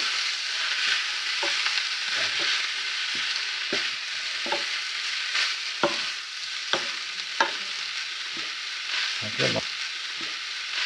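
Tripe frying in a pan with onions, smoked bacon and toasted breadcrumbs, sizzling steadily while being stirred, the utensil knocking against the pan every second or so.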